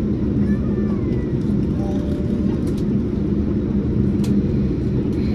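Steady low rumble inside the cabin of a jet airliner taxiing, from the engines at idle and the aircraft rolling along, with a few faint clicks.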